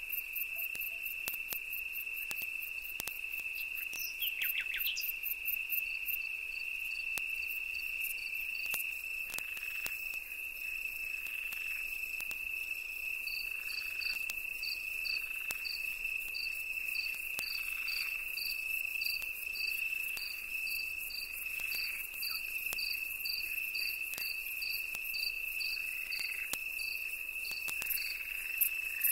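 Insects trilling: one steady high trill runs throughout, joined after about six seconds by a second insect's even chirps at about two a second. About four seconds in, a short call falls in pitch.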